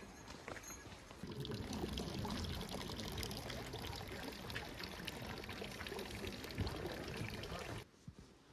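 Water pouring from a bamboo spout into a stone basin, a steady splashing that starts about a second in and cuts off sharply near the end.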